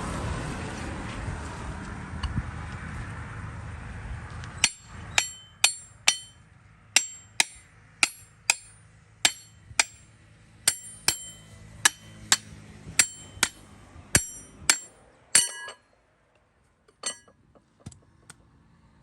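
A hammer striking steel in a run of sharp, ringing metallic clinks, often in pairs at about two a second, after a fading rush of noise; a few fainter taps follow near the end.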